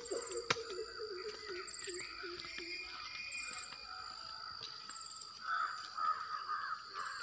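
Birds calling in misty woodland: a low note repeated about three times a second for the first few seconds, then louder calls near the end, over a steady high insect drone.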